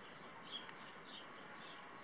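Small birds twittering, with a steady stream of quick, high chirps.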